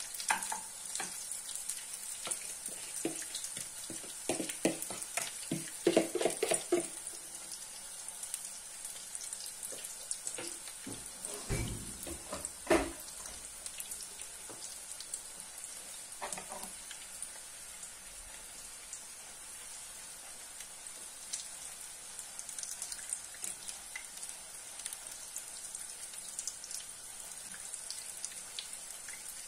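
Onion patties sizzling steadily in hot vegetable oil in a frying pan. Now and then a spoon clatters and scrapes in the pan, with two sharp knocks about twelve seconds in.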